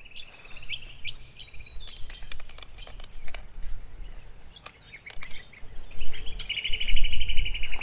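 Small metallic clicks and taps as a wire clamp is fitted and tightened on a steel star picket holding high-tensile fence wire. A bird gives a rapid high trill at the start and again near the end.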